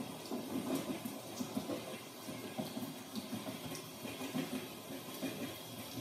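Steady rain mixed with the rumble of a train heard from inside a passenger car, a dense low flutter with scattered small ticks and hiss above it.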